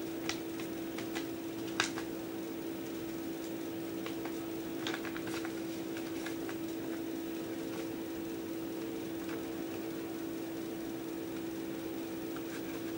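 Steady hum of a wall-mounted electric fan running, with a few light crackles of paper as an envelope and card are handled in the first five seconds.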